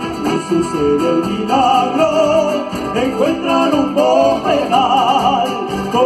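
Live band playing a northern Chilean cueca: a melody with vibrato over strummed guitar and drums.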